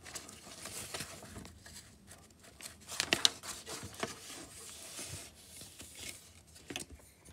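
Comic book pages being turned by hand: soft paper rustling, with a few sharper crinkles about three seconds in.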